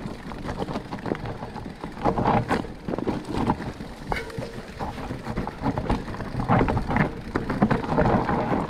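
Specialized Turbo Levo electric mountain bike rolling down a rocky, gravelly trail: tyres crunching over loose stones and the bike rattling and knocking on every bump, with wind buffeting the handlebar-mounted microphone.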